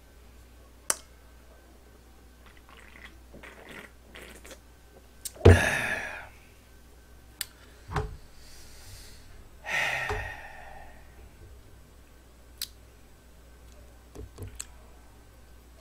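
Close-miked eating sounds from a person eating cold spicy noodles and grilled pork belly: chewing and small clicks of chopsticks. There is a louder thump with a rush of noise about five seconds in, and another noisy sound near ten seconds.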